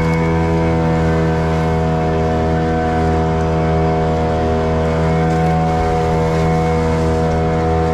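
Boat engine running steadily at an even, unchanging pitch.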